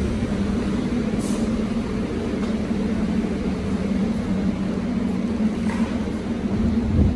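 Steady drone with a low held hum from the stationary R44 subway cars idling at the platform under the terminal roof.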